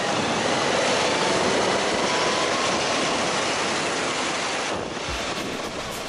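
Wind rushing over the microphone of a motorcycle rider at road speed, with the bike's engine faintly heard under it. The wind noise thins about five seconds in.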